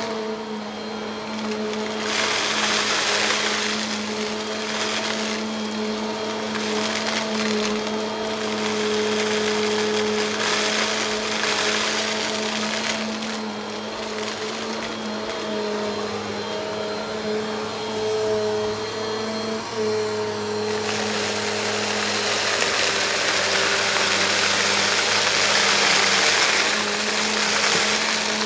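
Bissell vacuum cleaner running, its motor holding one steady pitch under a rush of air that swells and fades every few seconds, then turns fuller and steadier for the last third.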